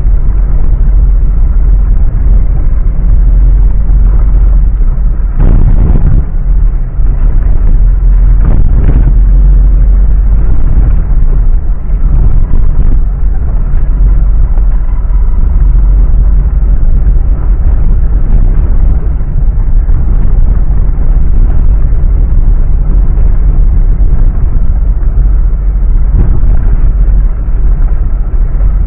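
Mitsubishi Pajero driving off-road: a loud, steady low rumble of engine and driving noise, with a couple of knocks about five and nine seconds in.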